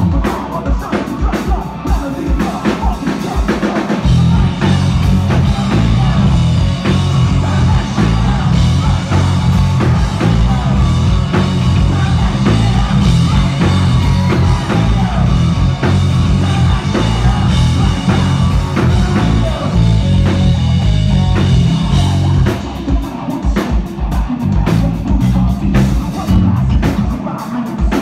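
Rock band playing live with drum kit and electric guitars. The full band gets heavier about four seconds in and thins out again a few seconds before the end.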